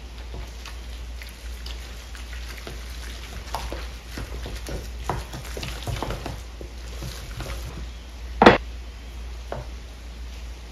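Wooden spoon stirring a wet ricotta and egg mixture in a stainless steel bowl, a run of light scrapes and clicks. A single sharp knock about eight and a half seconds in is the loudest sound.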